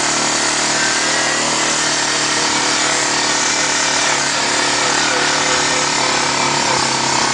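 Single-cylinder four-stroke engine of a 2006 Suzuki Eiger 400 four-wheeler running at a steady speed as it rides across rough pasture.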